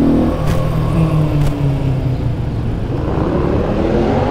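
Sport motorcycle's engine heard from the rider's seat. The revs drop as the throttle eases off just after the start, sink slowly as it coasts, then climb again over the last second or so as it accelerates.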